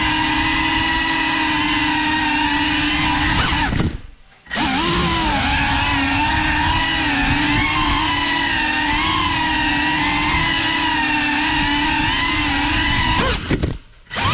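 GEPRC Cinelog35 cinewhoop quadcopter's motors and propellers whining, the pitch wavering up and down with the throttle. The whine drops out for about half a second around four seconds in and again near the end, then comes back.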